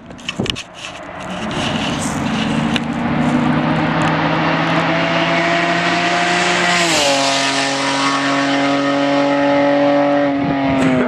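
Straight-piped 3.7-litre J37 V6 of a 2010 Acura TL SH-AWD, with no catalytic converters, resonators or mufflers, in a high-speed flyby. The exhaust note grows louder as the car approaches, drops sharply in pitch as it passes about seven seconds in, and drops again near the end as it pulls away.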